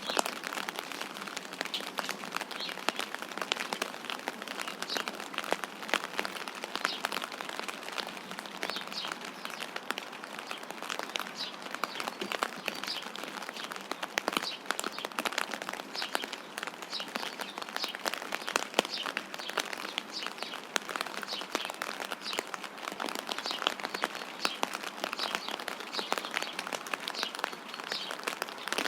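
Steady rain pattering, a dense spatter of small drop ticks, with small birds chirping over it now and then.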